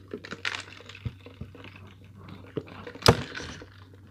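Mouth sounds of drinking from a fountain-drink cup through a straw: small sips and swallows, with a sharp click about three seconds in.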